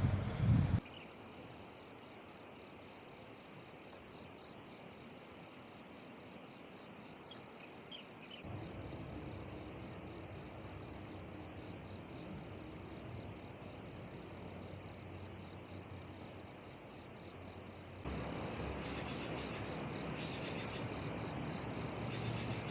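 Crickets chirping in an even, repeating rhythm, with a second insect's fast trill under them, over the steady low rush of a stream. The background gets louder in steps about eight seconds in and again near eighteen seconds.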